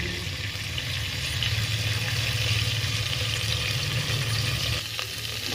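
Cumin seeds and green cardamom pods sizzling steadily in hot oil in a steel pot as the spices toast, with a low steady hum underneath.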